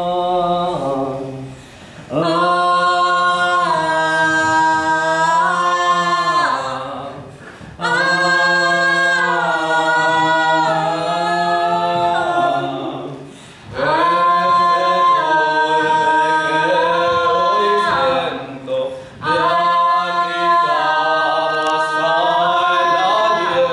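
A choir singing a cappella, holding long chords that move in steps, in phrases of about five seconds with short breaks between them.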